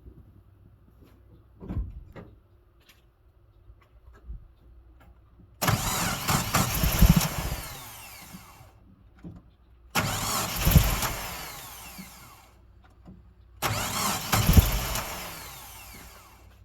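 1987 Mazda B2000 pickup's four-cylinder engine being cranked by the starter in three tries of about three seconds each, starting abruptly and fading off each time: the engine won't start.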